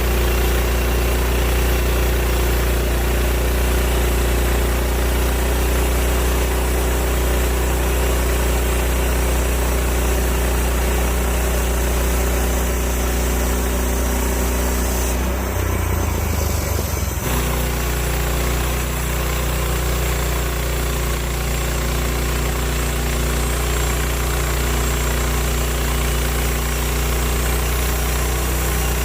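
A Woodland Mills HM130 bandsaw mill running steadily, its gas engine driving the band blade through a red oak log. The sound shifts briefly about halfway through, then settles back to the same steady running.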